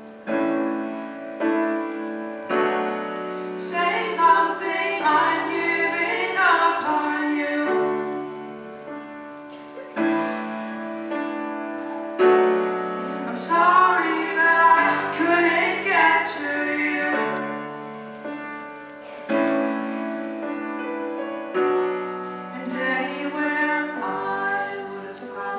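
Grand piano playing slow held chords, with a young woman's voice singing three long phrases over it.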